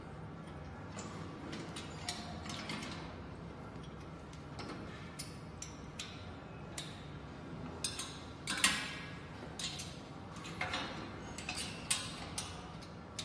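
Irregular metal clicks and clinks of steel bolts, washers and a wrench against a steel weight-bench frame being bolted together, loudest about halfway through and again near the end, over a low steady hum.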